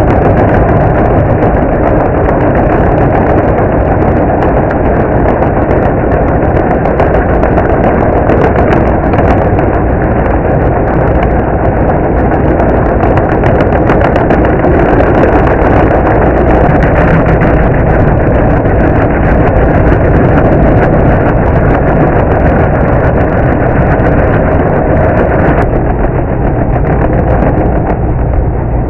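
Engine of a remote-control stump grinder running steadily and loudly.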